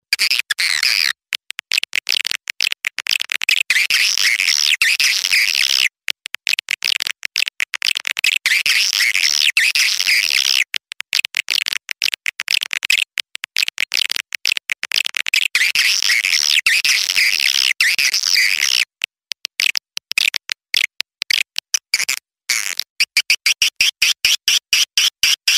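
Young swiftlets' call sound, a swiftlet-house lure recording: fast high twittering chirps in long runs broken by short pauses.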